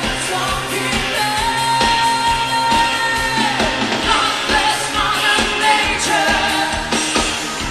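Pop dance music with a singer and a steady drum beat; about a second and a half in, the singer holds one long high note for about two seconds before letting it fall away.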